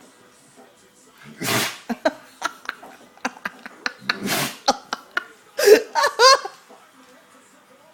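A dog sneezing twice, one short sharp burst about a second and a half in and another about three seconds later, with light clicks between. A person laughs briefly after the second sneeze.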